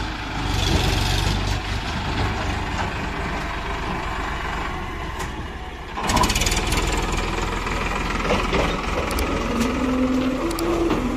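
Farmtrac XP41 tractor's diesel engine running under load while pulling a tipping trolley. About six seconds in it turns suddenly louder and clattering, heard close up, and a steady low hum joins near the end.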